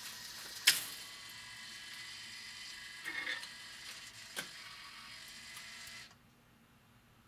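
AMI-Rowe R-88 jukebox's record-changing mechanism cycling to play a selected 45: a steady motor whir with a sharp click under a second in, a short rattle about three seconds in and another click, then the mechanism stops about six seconds in.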